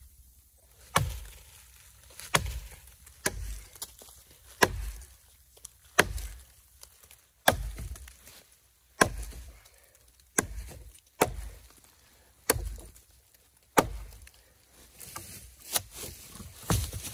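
Gränsfors Bruk mini hatchet chopping a notch into a fallen log: about a dozen sharp, evenly paced strikes, each a second or so apart, then a few lighter, quicker strikes near the end.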